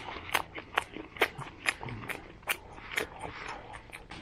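Small wood fire crackling: sharp, irregular pops, two or three a second.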